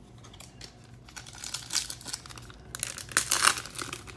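Foil trading-card pack wrappers crinkling and tearing as a pack is opened, faint at first and louder and busier from about two seconds in.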